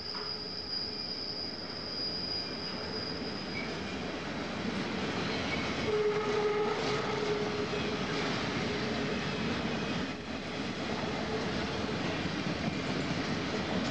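CSX intermodal freight train of truck trailers on flatcars rolling past on a curve, with a steady rumble and clatter of wheels on rail. A high wheel squeal fades out about three and a half seconds in, and a lower squealing tone stands out about six seconds in.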